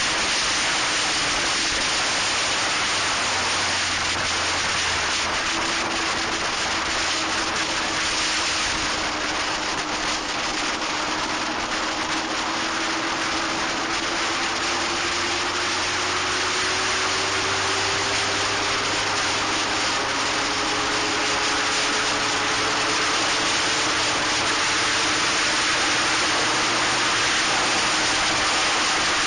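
Steady rushing wind noise on the onboard action camera's microphone of an open Locost race car at speed, with the car's engine note underneath, climbing slowly in pitch through the middle as it accelerates.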